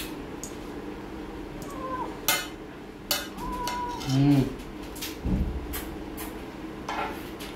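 Metal grooming comb clicking and clinking as it is worked through a Persian cat's long coat, with one short, low vocal sound about four seconds in.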